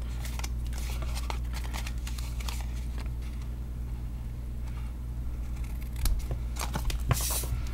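Small pointed scissors snipping through white cardstock along a score line: a run of short crisp cuts, busiest about six to seven and a half seconds in, over a steady low hum.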